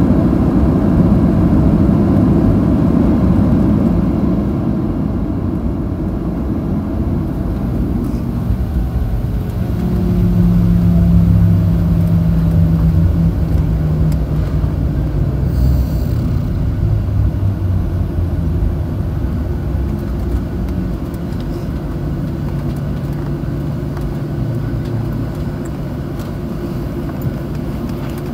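Cabin noise of a Boeing 737-700 with CFM56 engines rolling on the ground after landing. A loud low rumble of engines and wheels eases over the first several seconds as the jet slows, then settles into a steadier engine hum with a low drone tone.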